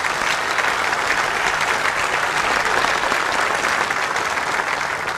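A large audience applauding steadily, dense clapping that swells and holds, then begins to thin out near the end.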